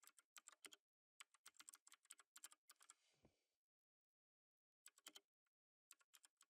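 Faint typing on a computer keyboard: quick runs of key clicks, a pause of about a second after the middle, then a few scattered keystrokes near the end.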